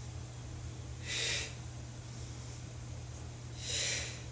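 A woman's audible breaths during a Pilates exercise: two short, hissing breaths about two and a half seconds apart, in time with the cued breathing, over a steady low hum.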